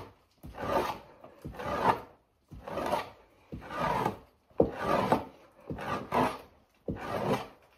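Knife blade scraping fat off a raccoon hide stretched over a PVC-pipe fleshing beam, in repeated pushing strokes about once a second, working down the tail.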